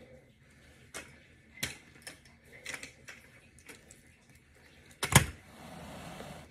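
Clicks and clacks of a SPRI steel doorway pull-up bar being handled, then a loud clunk about five seconds in as it is set down.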